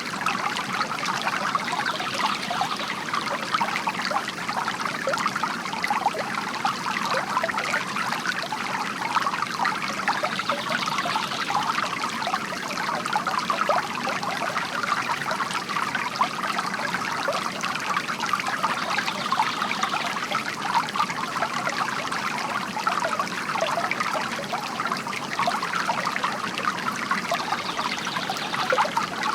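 Bamboo water fountain: a steady trickle of water spilling and splashing into a basin, a continuous bright patter.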